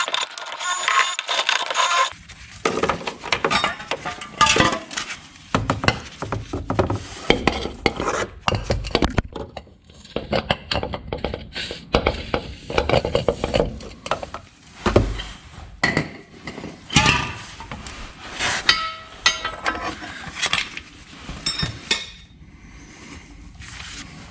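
Steel tools knocking, clinking and scraping against a worn minivan rear trailing arm bushing and its bracket as it is pried at, in irregular sharp strikes. A steady high-pitched mechanical noise runs for about the first two seconds.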